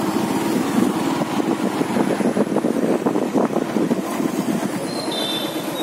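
Motorcycle engine running steadily as the bike is ridden slowly along the road.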